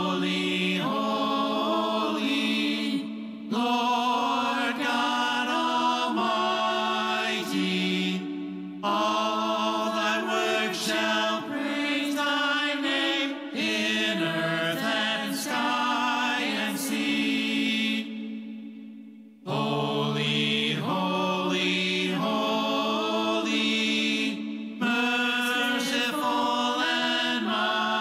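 Church worship song: voices singing in slow phrases over held chords, with a brief break a little past two-thirds of the way through.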